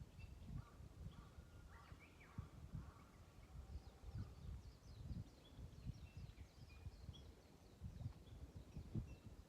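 Faint birdsong: short, scattered chirps and twitters from several small birds, over an irregular low rumble of wind or handling noise on the microphone.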